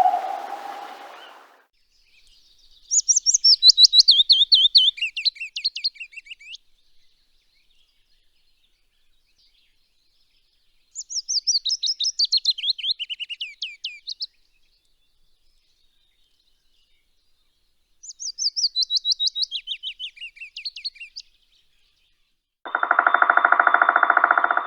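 A songbird singing three separate phrases several seconds apart, each a quick run of high chirping notes that falls in pitch over about three seconds. A steady buzzy rattle starts near the end.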